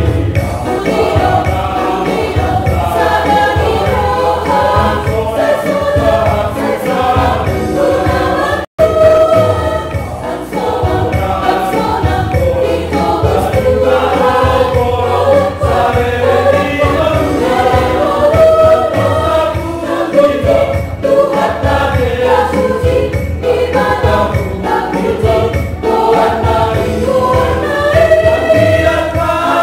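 Church choir singing a Christian song in Batak Toba, many voices together. The sound drops out for a split second about nine seconds in.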